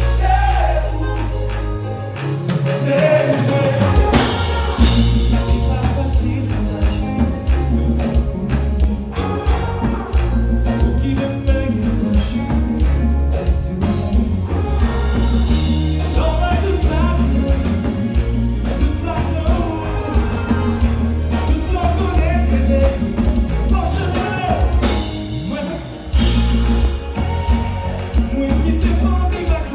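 Live band playing with a lead singer over the PA: heavy bass and drums, electric guitar and vocals. The bass drops out briefly about two seconds in, then comes back in.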